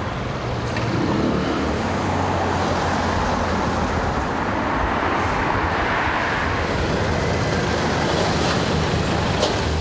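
Steady road traffic noise, swelling a little in the middle.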